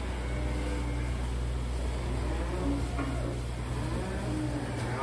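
Steady low machine hum in a cattle shed, with a few faint lowing calls from cattle over it.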